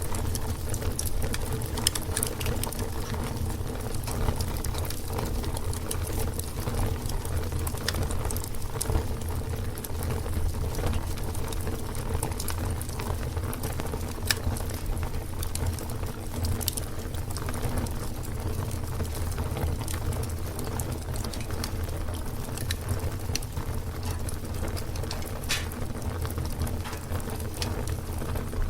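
Fire burning: scattered sharp crackles and pops over a steady low rush of flame.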